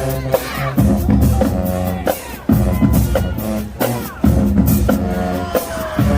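High school marching band playing: sustained horn chords over a steady beat of drum hits.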